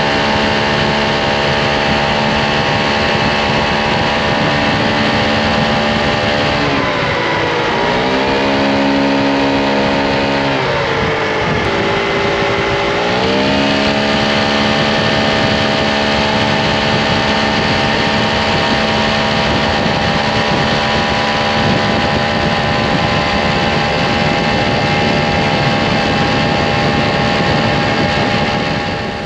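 Aprilia SR GT 125 scooter's single-cylinder four-stroke engine and exhaust running at steady high revs, dropping to lower revs about seven seconds in and climbing back up some six seconds later.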